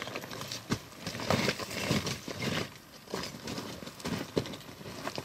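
Boots stepping down over loose rock and gravel: uneven crunching footsteps, about two a second.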